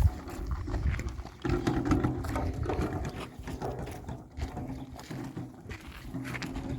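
Livestock calling: several drawn-out, pitched calls one after another.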